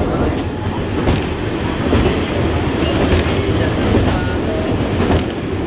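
Passenger train running along the tracks, heard from inside a carriage: a steady rumble with the clack of the wheels over rail joints about once a second.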